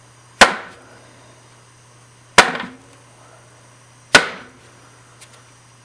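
Section of metal furnace flue pipe tapped end-down on the floor three times, about two seconds apart, each a sharp knock with a short ringing tail, shaking loose soot built up from an oil-furnace puffback.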